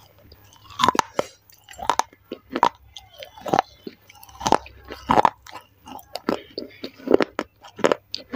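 Mouth chewing pieces of a broken baked-clay saucer close to a clip-on microphone: irregular sharp, gritty crunches, a little under two a second.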